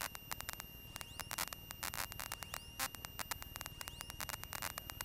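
Faint aircraft radio static heard over the headset intercom: hiss full of irregular crackling clicks, with a thin steady high tone, on a radio just retuned to a new frequency.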